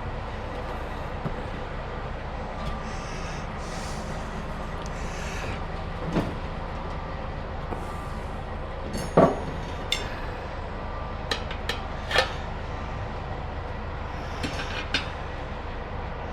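Metal tire irons knocking and clinking against a motorcycle wheel rim while the soaped second bead of the rear tire is levered on. There are a handful of sharp knocks, the loudest about nine seconds in, over a steady low rumble.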